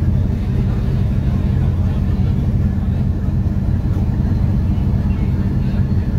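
Steady low rumble of the MV Dumai Line 9 passenger ferry's engines as the vessel gets under way on departure.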